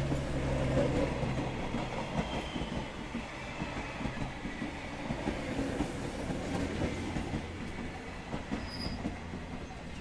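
A train running on the rails: a steady low rumble with clattering wheels.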